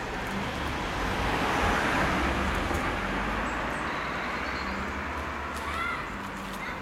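A car passing along a narrow street: engine and tyre noise swelling to its loudest about two seconds in, then slowly fading. A brief high chirp near the end.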